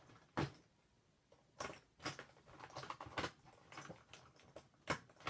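Irregular light clicks and taps of makeup products being handled: cases, brushes and containers knocked and set down, a few sharp taps spread over the seconds with quiet gaps between them.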